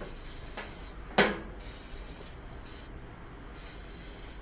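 One sharp click about a second in, from a hand working on parts in a lawn tractor's battery compartment. A faint high hiss comes and goes.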